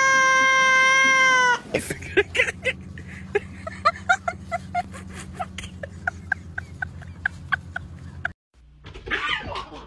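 Black-and-white cat's long, held meow, steady in pitch, which breaks off about a second and a half in. It is followed by a quieter run of short chirps and clicks, a few a second, over a low hum.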